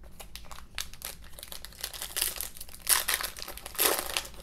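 Foil wrapper of a Donruss football card pack crinkling and crackling as hands handle it and tear it open. The loudest rustles come about two, three and four seconds in.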